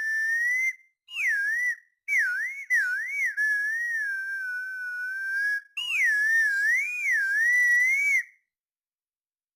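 A clear, whistle-like tone wavering up and down in pitch, in three phrases with short breaks, stopping about eight seconds in.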